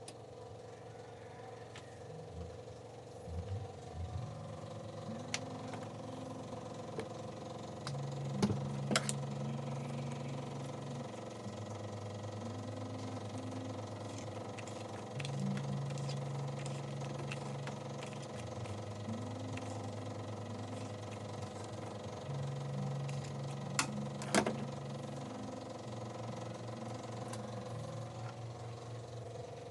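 Suzuki Multicab's carbureted F6A 12-valve engine idling steadily, with a few sharp clicks along the way.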